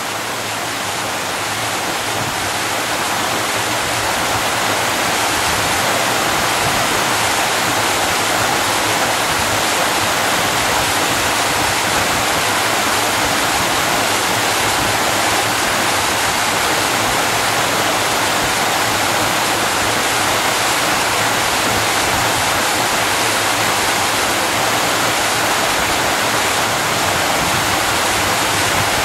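Waterfall pouring, a dense steady rush of falling water heard up close; it grows a little louder over the first few seconds, then holds steady.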